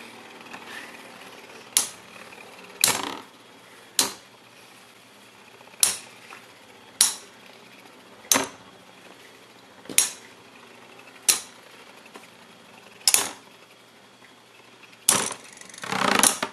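Two metal-wheeled Beyblade spinning tops whirring in a plastic stadium and knocking together with sharp clacks every second or two, then a quick run of clatter near the end.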